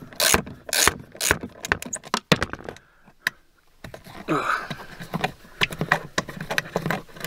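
Sharp metallic clicks and clinks from a socket wrench and extension working out the last of a small trim bolt, then after a short pause rubbing and scraping as a hand reaches into the plastic center-console trim.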